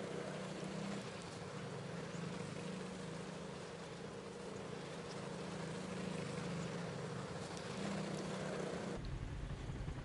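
A steady low mechanical hum with a few faint ticks over it; about nine seconds in it cuts off abruptly, leaving a low rumble.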